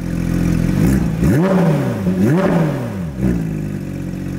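Sports car engine idling, then revved twice with quick throttle blips, the pitch rising and falling each time before it settles back to a steady idle.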